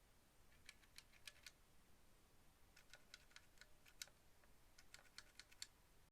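Faint keystrokes on a WENRUI WR63 mechanical keyboard with red linear switches, typed in three short bursts of several keys each.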